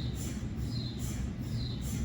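GE 3T Twinspeed MRI scanner running a cardiac scan sequence: the gradient coils pulse in a repeating pattern roughly twice a second, each pulse carrying a high chirp, over a steady low hum.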